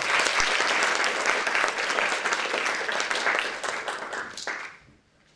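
Audience applauding: many hands clapping, steady at first, then thinning and dying away about five seconds in.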